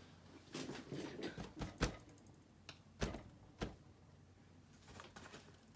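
Handling noise: a run of light clicks and knocks from something being moved and set in place. The sharpest comes a little under two seconds in, with two more about a second later.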